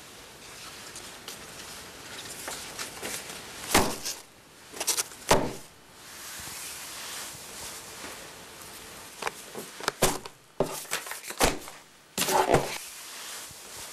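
Tissue paper and fabric rustling as a gift box is handled, broken by several sharp knocks, a cluster of them near the end.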